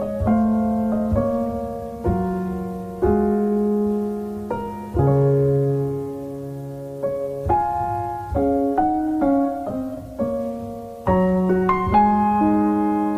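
Slow, gentle solo piano music: notes and chords struck every second or so, each ringing and fading before the next.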